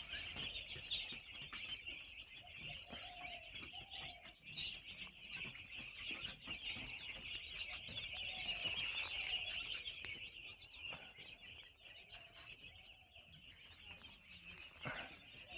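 A flock of four-day-old broiler chicks peeping continuously, many high chirps overlapping into one chorus. The chorus thins out about two-thirds of the way through.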